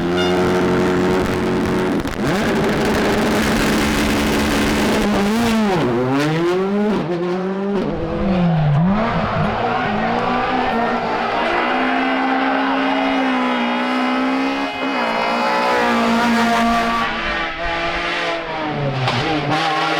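Rally car engine at hard throttle, its pitch sweeping sharply up and down through gear changes and lifts, with long steady stretches held at high revs.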